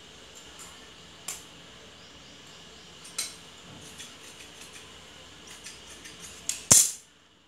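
Large steel tailoring shears cutting through cotton fabric: a series of sharp metallic snips and clicks as the blades close, a few loud ones between quieter ticks, with the loudest clack near the end.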